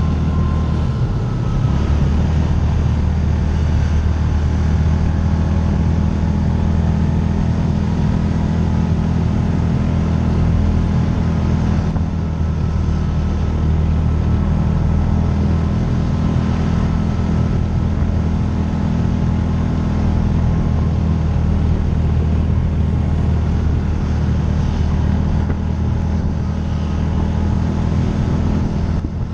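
Side-by-side UTV engine running steadily under load as it climbs a steep paved road, with a constant low drone.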